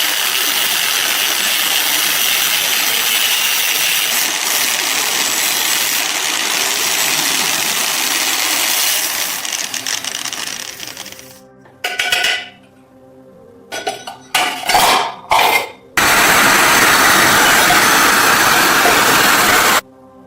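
A power tool working on rusty metal, running in a long stretch that fades out, then in short bursts, then a final loud run that cuts off suddenly.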